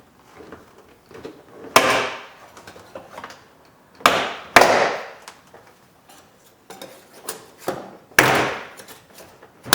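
Door panel retaining clips snapping loose as a putty knife pries the door trim panel away from the door: four sharp pops, two of them about half a second apart near the middle, each with a brief rattle, and small clicks and scrapes between.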